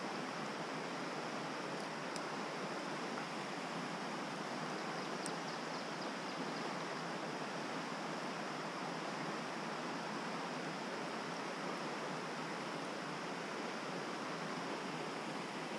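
Steady rush of a rocky mountain trout stream flowing over big stones.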